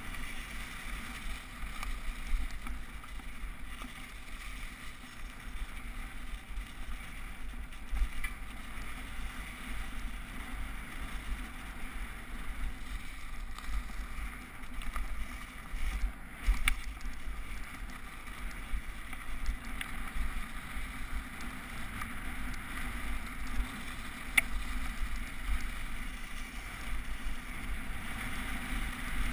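Bike riding downhill over snow and leaves, heard through a GoPro Hero HD's sealed housing: a steady muffled rumble and rattle with wind buffeting, and a few sharper knocks from bumps in the trail.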